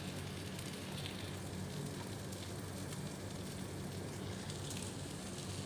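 Beaten egg and chopped winged beans frying in hot oil in a pan, a steady sizzle as the omelette sets on the bottom.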